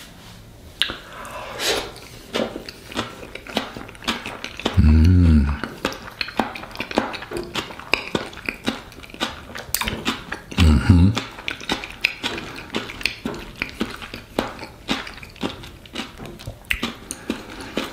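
A man chewing a mouthful of hard-boiled egg stuffed and topped with caviar, with many small wet mouth clicks. Twice, about five and eleven seconds in, he gives a low 'mmm' hum of enjoyment.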